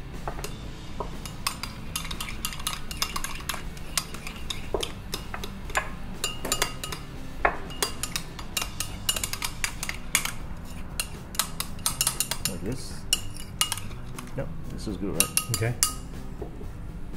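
Metal spoon clinking, tapping and scraping against a small ceramic bowl while stirring sambal into mayonnaise, a quick irregular run of ticks with now and then a short ring.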